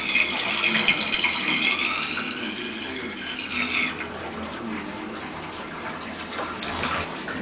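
Water running from a bathtub tap and splashing into the tub, a steady hiss that eases off about halfway through.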